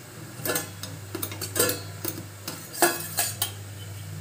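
Stainless-steel tiffin-box lid being pried up and lifted off with a flat metal utensil: a series of sharp metallic clinks and scrapes of steel on steel, with the loudest knock near the end.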